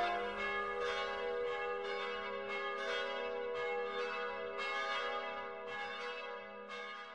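Bells ringing in a quick, even sequence of about two strikes a second, their tones overlapping and hanging on, fading out near the end.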